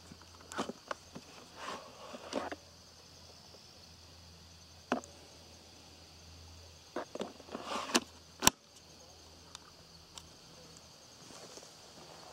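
Plastic clicks and knocks as the Oregon 40V PowerNow battery pack is unlatched and pulled out of the cordless chainsaw, then slid back in, ending in a sharp latching snap about eight and a half seconds in. A faint steady insect trill sits behind.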